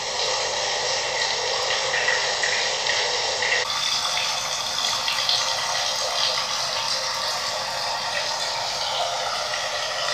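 Steady hiss of trickling, running water, changing abruptly in texture about three and a half seconds in.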